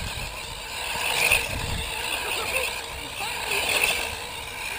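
Remote-control car driving at speed, a steady rough rumble and hiss of motor and tyres with no clear impact.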